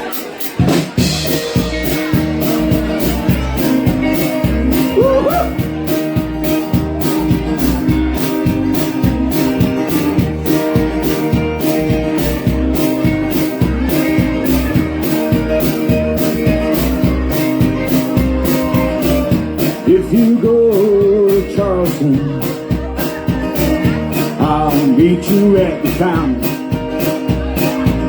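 Live rock band playing with a steady drum beat, the whole band coming in at once.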